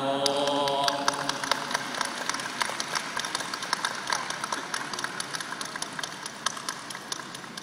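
A large crowd's drawn-out 'sathu' chant ends about a second in. It gives way to a steady crowd murmur with many scattered sharp clicks that thin out and fade.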